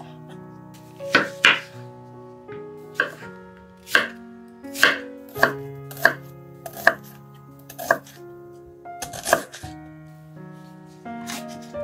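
Chef's knife chopping onion on a wooden cutting board: a dozen or so separate knife strikes against the board at an unhurried pace of about one a second, with soft background music underneath.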